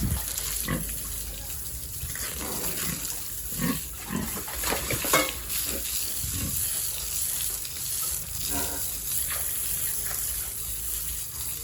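Pigs grunting now and then over a steady hiss of running water.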